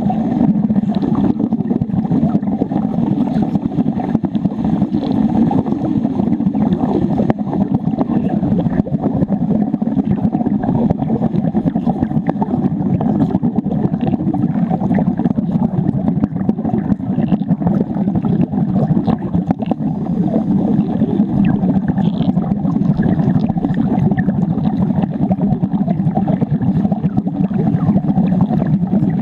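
Underwater wet arc welding: the electrode arc crackles and bubbles steadily as a weld is run on a steel plate.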